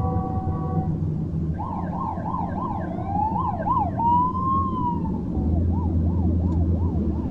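City traffic rumbling beneath emergency-vehicle sirens. A held horn sounds for about the first second, then from about a second and a half in, several sirens overlap. They wail and yelp up and down, with one long rising and falling wail in the middle and fast regular sweeps near the end.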